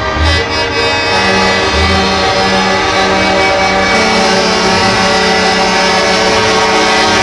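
Truck air horns sounding together in a sustained chord of several pitches. A low horn gives short blasts for the first few seconds and is then held steady.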